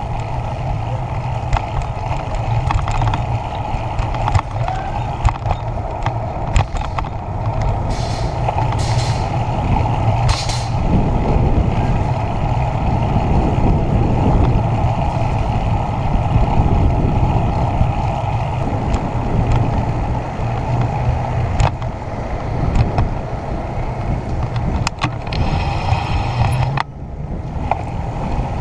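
Steady wind buffeting and rolling rumble from a moving bicycle picked up by a bike-mounted action camera, with a few short hisses and scattered clicks and rattles.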